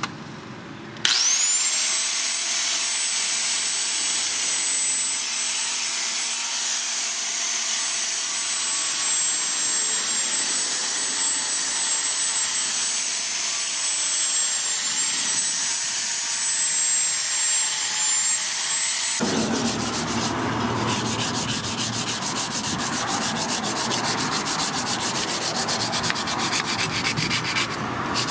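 An electric angle grinder with a sanding disc starts about a second in and runs with a steady high whine as the disc grinds and polishes the steel knife blade. About two-thirds of the way through the whine stops and is replaced by rapid strokes of sandpaper rubbed by hand over the blade.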